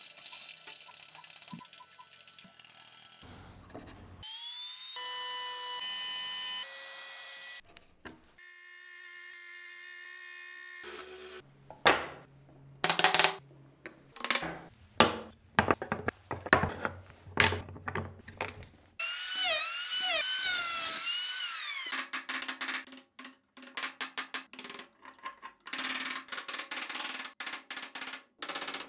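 Hand woodworking sounds in quick succession: a coping saw rasping through a hardwood block, then a run of sharp wooden mallet knocks on the wood about halfway through, then short, quick chisel cuts and clicks near the end. Some squeaky, gliding tones sound between them.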